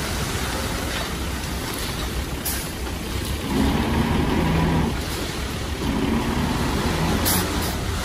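Heavy diesel engine of earthmoving machinery running steadily, working harder twice for a second or so each, about halfway through and again near the end.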